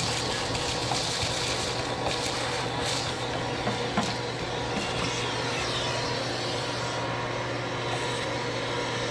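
A machine running steadily, with a constant low hum under an even hiss.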